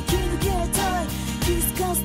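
Background music with a steady beat and a short, repeating melody.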